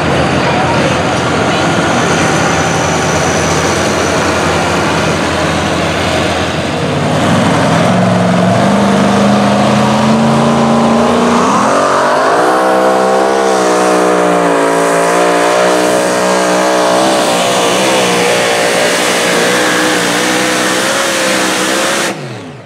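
Pulling trucks at full throttle under load. First a diesel Dodge Ram pickup pulls the sled, its engine note climbing in pitch. Then a supercharged Ford F-150 runs at high revs with a wavering pitch that cuts off suddenly near the end.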